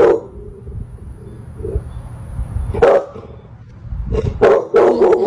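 Dog barking: a single bark about three seconds in, then a quick run of about four barks near the end.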